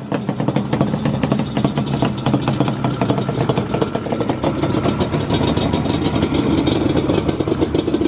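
Yamaha Banshee's two-stroke twin engine idling steadily, just started on a single kick, with a rapid even run of firing pulses.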